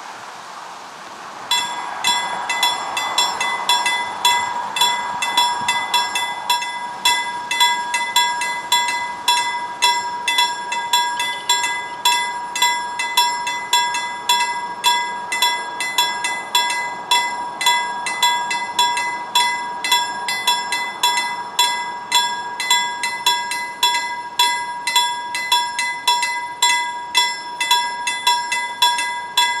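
A level-crossing warning bell starts suddenly about a second and a half in and rings on in fast, continuous strikes, swelling and fading a little under twice a second. It is warning that a train is approaching and the barriers are coming down.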